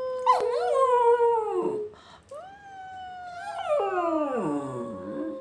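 Lakeland terrier howling twice, each howl wavering and then sliding down in pitch, along with a person's long held 'awoooo', a steady note that falls slowly.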